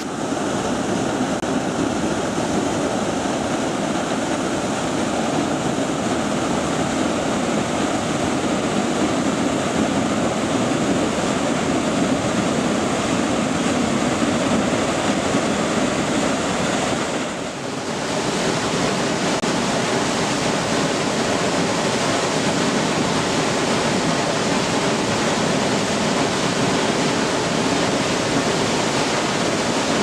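Waterfall: a steady, dense rush of falling water crashing into its pool, dipping briefly a little past halfway through before carrying on.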